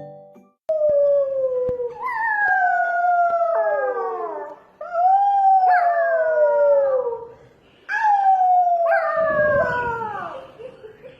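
Dog howling: three long, drawn-out howls, each sliding down in pitch, with short breaks between them.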